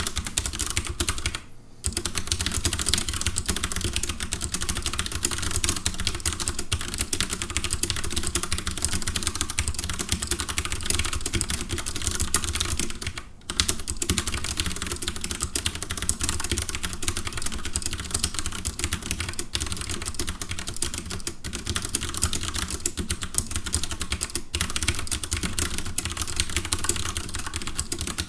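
Fast, continuous typing on a Leopold tenkeyless mechanical keyboard with Cherry MX Brown tactile (non-clicky) switches, keystrokes clattering in a dense stream. The typing pauses briefly about a second and a half in and again about halfway through.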